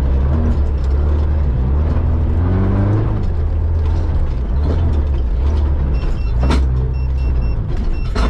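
Off-road vehicle's engine pulling under load on a climb, a steady low drone rising and falling in pitch with the throttle. Two sharp knocks cut through it, about six and a half seconds in and again near the end.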